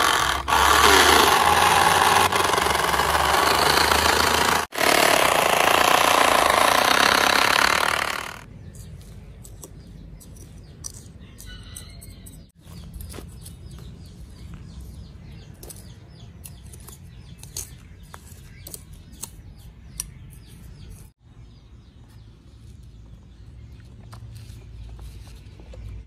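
Sand pouring out of a plastic toy dump truck's tipped bed: a loud, even hiss lasting about eight seconds. It is followed by quieter scraping and small clicks as a small rake spreads the sand over a toy bridge deck.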